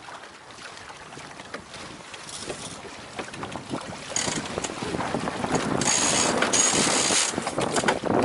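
Water washing and splashing along the hull of a Beneteau First 20 under sail, with wind buffeting the microphone. It grows louder from about four seconds in.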